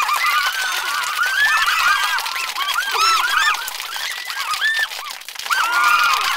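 Hockey arena crowd screaming and cheering, many high-pitched voices overlapping, with a short dip in loudness about five seconds in.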